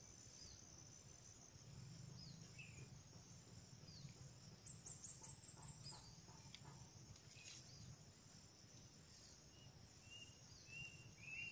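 Near silence with a faint, steady, high-pitched insect drone, and a few short chirps near the end.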